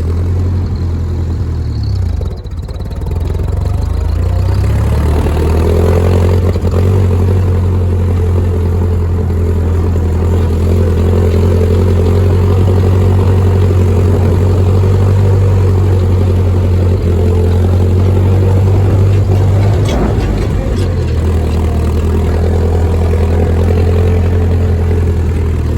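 Ford 2N tractor's four-cylinder flathead engine running under load as the tractor is driven in third gear. The sound dips briefly about two seconds in, then rises as the tractor pulls away and holds a steady note.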